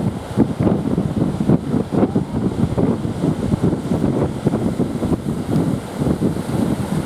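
Strong wind buffeting the microphone in irregular gusts, over the rumble of heavy surf.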